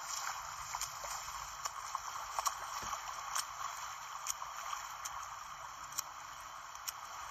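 Shallow sea water splashing and rushing around a person running through it, with scattered short sharp splashes, heard thin and tinny through a small camera speaker.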